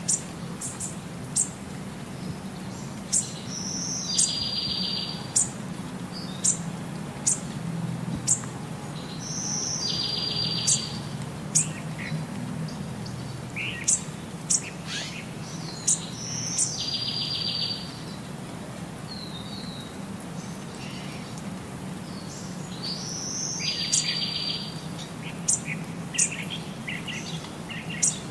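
Young little owl calling while being stroked: sharp high chirps here and there, and about every six seconds a short buzzy, rasping call. A steady low hum runs underneath.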